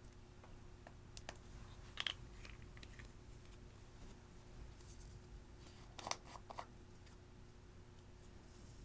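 Clear slime being handled and mixed, giving a few soft sticky clicks and crackles: a couple about a second or two in and a small cluster about six seconds in, over a faint low room hum.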